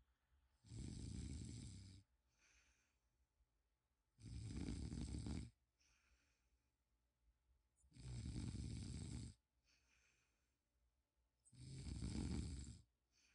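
Snoring: four long snores, each a little over a second and coming about every three and a half to four seconds, with softer breaths between them.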